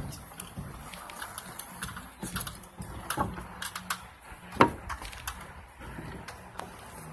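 Storm precipitation striking a hard surface in irregular sharp taps over a low steady background, with one much louder hit about four and a half seconds in.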